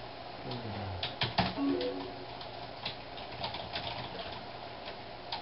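Irregular clicking of typing on a computer keyboard, with a short pitched sound about a second and a half in.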